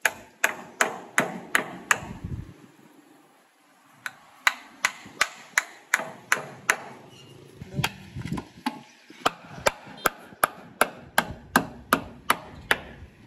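Hand hammer striking a wooden formwork board, nailing it against the concrete. The blows come in three quick, even runs of about three a second, with a pause of about two seconds between the first and second runs.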